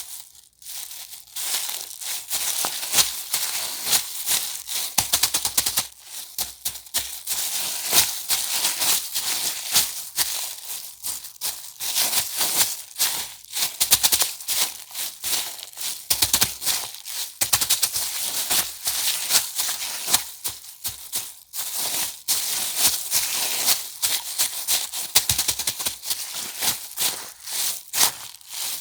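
Thin plastic bag or sheet being crinkled and handled by hand, a dense, irregular crackling with sharp crinkles.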